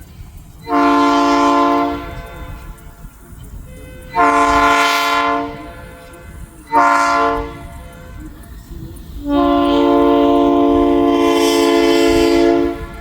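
Locomotive air horn, several notes sounding together as a chord, blowing the grade-crossing signal: two long blasts, a short one, then a longer held blast.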